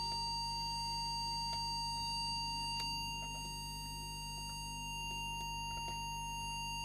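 Steady 1 kHz test tone from a small audio oscillator, with a low hum beneath. The tone modulates an AKD 4001 4-metre FM transmitter while its deviation preset is adjusted, because the deviation was running too high.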